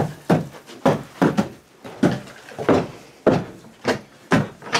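Footsteps at a steady walking pace, about two sharp steps a second.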